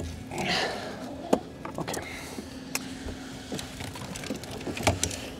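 Several short, sharp knocks and clicks at irregular intervals over a faint steady hum.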